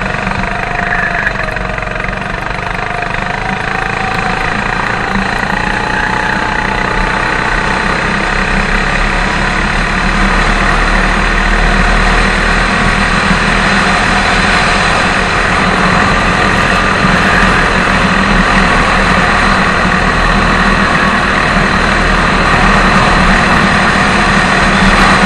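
Go-kart engine heard from on board under way, its pitch bending up and down through the first few seconds, then holding steady while the sound grows gradually louder.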